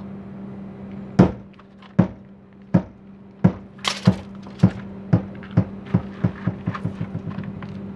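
A 14-pound sledgehammer on a hinged swing arm strikes a fibreglass caravan wall with a sharp knock about a second in, then bounces against the wall again and again, the knocks coming quicker and softer until they run together near the end as it settles.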